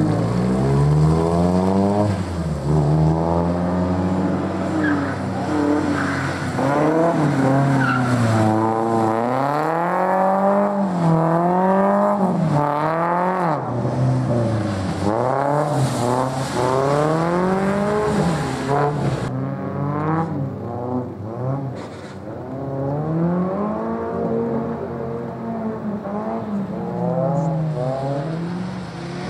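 Opel Kadett C race car's engine revving up and down over and over as it drifts through the corners, with tyres skidding on the wet track. It goes somewhat quieter about two-thirds of the way through, then picks up again.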